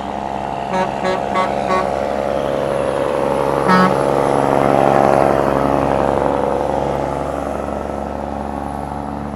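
A loaded truck's diesel engine working up a steep grade, growing louder as it passes close about halfway through and then fading. A horn toots four times in quick succession about a second in and once more just under four seconds in.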